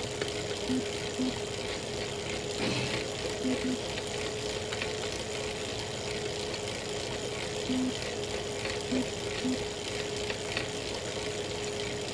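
Elite Real Turbo Muin B+ bike trainer running under pedalling: a steady whine with short knocks and clicks at uneven intervals. These are the cracking noises the owner reports from the trainer at any cadence once power goes over 200 watts.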